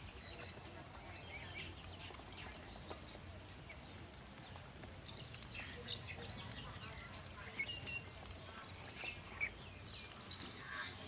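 Ducklings peeping: faint, scattered high chirps, with a few small clicks and a steady low hum underneath.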